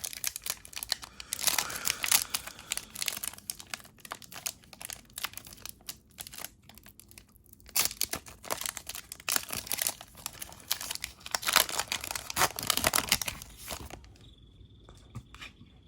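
Trading-card pack wrapper being torn open and crinkled by hand, a long run of irregular crackles that dies away about two seconds before the end.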